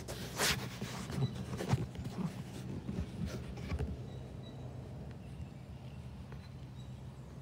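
Footsteps on grass and rustling of the handheld phone as it is carried, an uneven run of soft knocks over the first few seconds, the sharpest about half a second in. A steady low hum sits underneath, and the footsteps die away about four seconds in.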